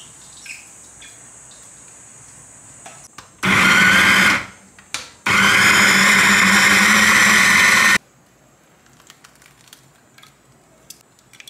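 Mayer electric food chopper blending tomatoes in two pulses: a short burst of about a second, then, after a brief pause, a steady run of nearly three seconds that cuts off suddenly.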